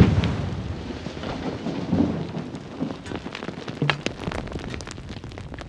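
Aftermath of a hard-rock blast of drilled and charged holes: the detonation's boom dying away into a long rumble, with many small sharp impacts of falling rock and debris throughout and a couple of heavier thuds about two and four seconds in.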